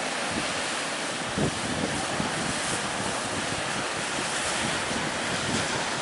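Ocean surf breaking in a steady wash, with wind buffeting the microphone in low gusts.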